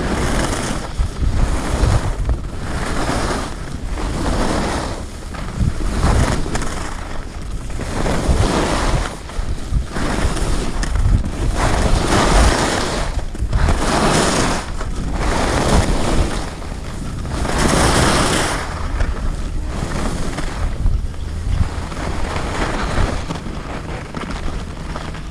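Skis hissing and scraping over packed piste snow, swelling with each turn about once every second or so, over wind rumbling on the camera's microphone. The sound eases over the last few seconds as the skis slow on flatter ground.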